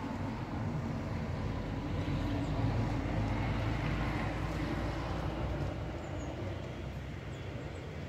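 A car driving past, its engine and tyre noise swelling to a peak about three seconds in and then slowly fading as it moves away.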